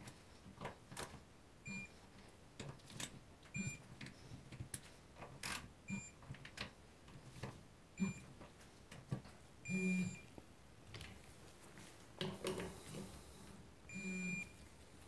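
Digital torque wrench beeping about six times, short high beeps as each crankcase screw reaches its set torque. Separate tool clicks and knocks fall between the beeps.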